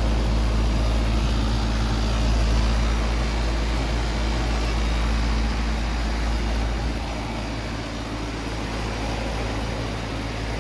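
2003 Trane R-410A outdoor condensing unit running just after start-up: a steady compressor hum under the rush of the condenser fan, easing slightly about seven seconds in.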